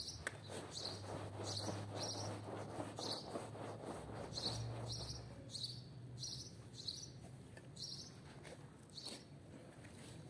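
Stiff-bristled brush scrubbing a soap-foamed rug in quick strokes, fading after about five seconds to the softer sound of a gloved hand working the wet foam. Short high chirps repeat about every half second throughout.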